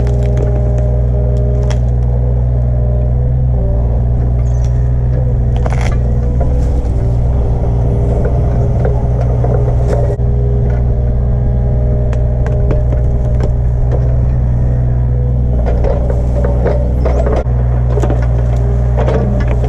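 Mini excavator's engine running steadily under load while it digs, with its drone dipping and recovering a couple of times, and scattered cracks and scrapes of stumps, roots and dirt being torn out.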